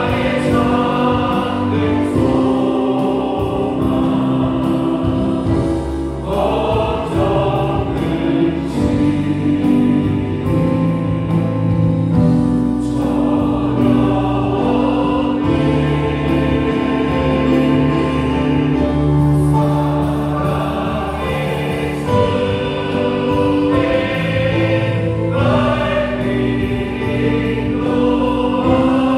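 A live church worship band plays a hymn: a Yamaha Montage 8 synthesizer keyboard, electric bass guitar and drum kit accompany a group of voices singing.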